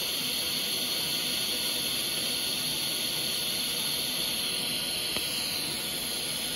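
TIG welding arc on thin 1.6 mm stainless steel sheet, giving a steady, even hiss as the weld bead is run. The hiss eases off near the end as the arc is stopped.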